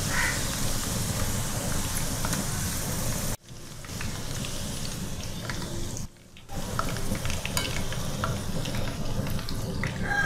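Okra pieces deep-frying in hot oil, a steady sizzle as a wire spider strainer lifts them out, with a few light clicks. The sound drops out abruptly about a third of the way in and dips again briefly past halfway.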